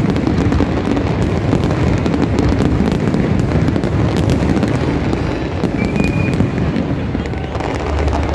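Dense fireworks barrage: many aerial shells bursting and crackling at once, so the reports run together into one unbroken rattle, easing slightly near the end.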